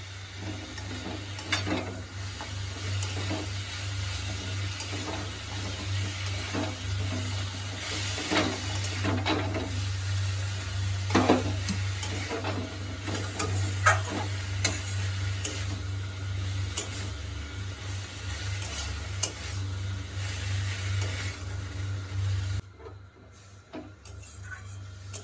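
Radish, aubergine and radish greens sizzling in a frying pan while a spatula stirs them, with scattered clicks of the spatula against the pan over a steady low hum. The sizzling and stirring stop near the end.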